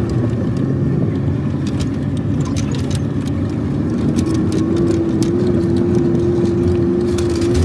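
Pickup truck driving on a rough sandy dirt trail, heard inside the cab: steady engine and tyre noise with a constant whine, and small clicks and rattles from the cab as it bumps along.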